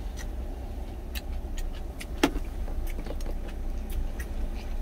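Truck engine idling, a steady low rumble heard inside the cab, with scattered light ticks. About two seconds in, one sharp metal clink with a brief ring, an eating utensil striking a stainless steel bowl.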